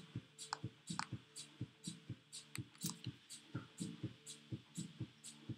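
Quiet background music: a held low drone under a steady soft pulse of about four beats a second, with light high ticks like a hi-hat.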